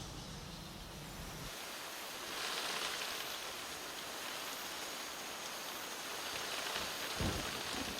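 Heavy tropical rain falling, steady hiss that grows louder about two and a half seconds in, with a brief low thump near the end.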